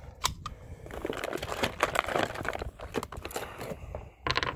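Hands handling a pistol magazine, with a few sharp clicks, one just after the start and a quick cluster near the end, amid steady rustling of a sweatshirt sleeve close to the microphone.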